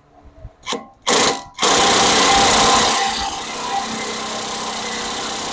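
Cordless impact wrench running a lug nut down over a stack of washers, drawing a new wheel stud through the hub until it seats. Two short bursts, then a long continuous run from about a second and a half in that eases slightly in level about three seconds in.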